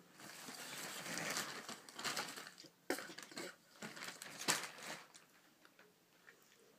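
Rustling and crinkling from things being handled and grabbed close to the microphone, with two sharp knocks about three and four and a half seconds in, then quieter.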